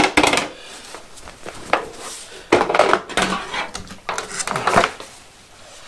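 Plastic diffuser lid being lifted off a fluorescent light fixture's sheet-metal housing, rattling and clattering in a few bursts: one at the start, then two more about halfway through.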